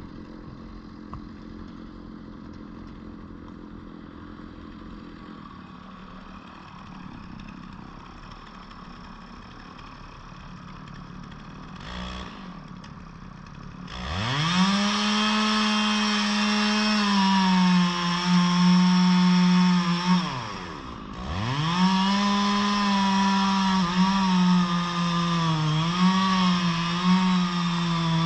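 A chainsaw idles at a low, steady pitch, then about halfway through is throttled up to full speed. Around three-quarters in the revs drop off and climb back, and the pitch then wavers with small dips as the chain bites into the wood of an ash tree being felled.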